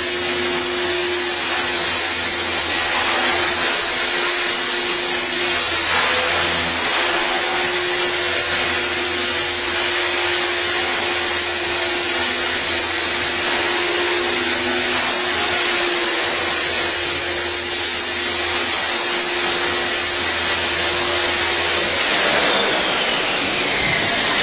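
Electric 450-size RC helicopter (a Trex 450 clone) running at hover speed, with its brushless motor and gears whining steadily over the rotor noise, during a stability test after its blades were tracked. About two seconds before the end it spools down, the whine falling in pitch.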